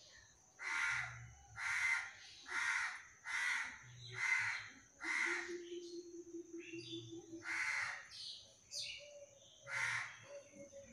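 Crow cawing: a run of six harsh caws about a second apart, then two more after a pause.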